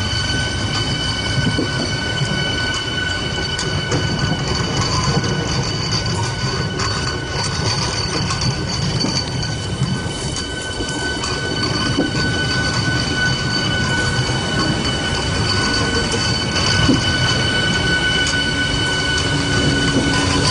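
Train 18 electric multiple-unit train running on the track: a steady low rumble with a constant high-pitched whine over it.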